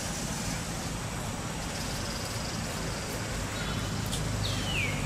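Outdoor ambience: a steady low rumble of distant traffic under a constant hiss, with one falling high-pitched call near the end.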